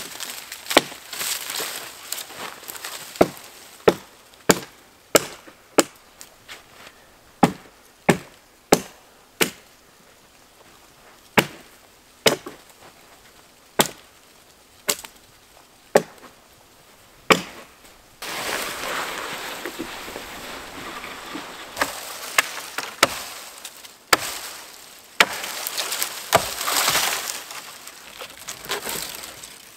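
Dry dead wood cracking and snapping as firewood is broken from a fallen tree: a string of single sharp cracks, one every second or so, for the first half. From a little past halfway it turns into steady rustling and crunching of brush, with a few more cracks.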